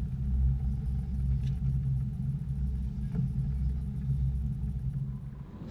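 Fishing boat's engine running steadily under way, a low rumble with the rush of water and wind.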